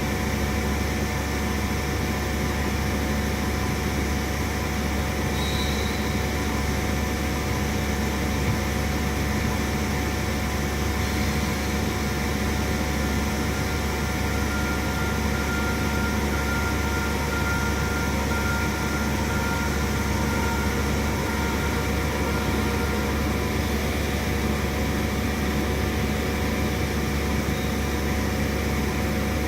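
CNC milling machine running steadily: an even mechanical hum with several constant tones, and a faint higher whine joining for several seconds around the middle.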